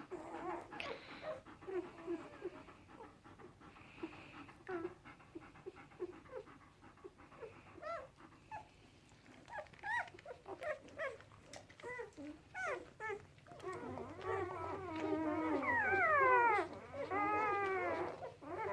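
Newborn puppies, about a day and a half old, squeaking and whimpering. At first there are scattered short high squeaks, then in the last third come longer, louder cries that slide down in pitch.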